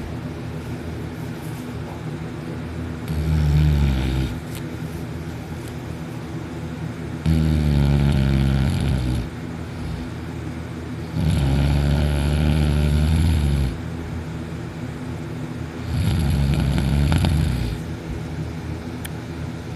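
A person snoring heavily in deep sleep: four loud, low, rumbling snores about four seconds apart, each lasting one to two seconds, with steady breath noise between them.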